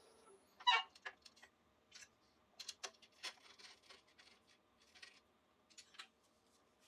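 Light clicks, taps and knocks from objects being handled on a woodturning lathe or bench, the loudest clatter about a second in, then a dozen or so scattered taps; a faint steady hum cuts off just after the start.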